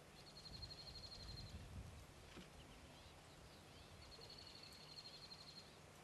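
Faint, high-pitched rapid trill, heard twice for about a second and a half each, with a few soft chirps in between.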